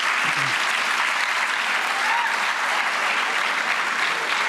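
Audience applauding: a dense, steady clapping.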